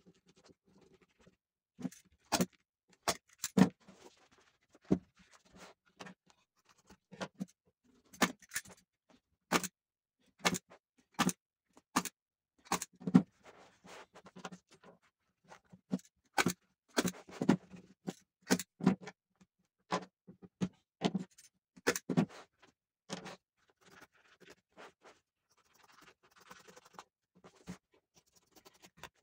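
Irregular sharp taps and clicks, about one or two a second, with brief faint scraping between them: hand tools and wooden chair parts being handled during restoration work.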